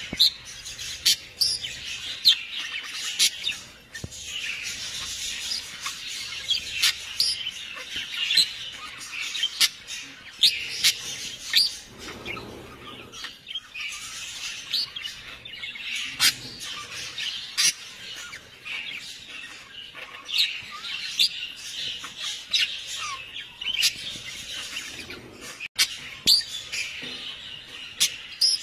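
Small animals chirping and squeaking: many short, high-pitched calls overlapping without pause, with sharp clicks among them.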